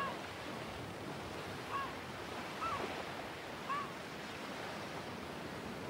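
Slot game's ambient sea soundtrack: a steady wash of surf and wind noise, with four short, high chirps.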